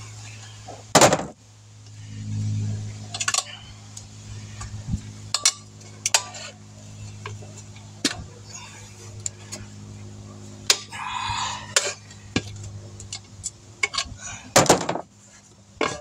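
Irregular metallic clinks, knocks and scrapes of a motorcycle tire being pried off its wheel rim by hand, with a steady low hum underneath.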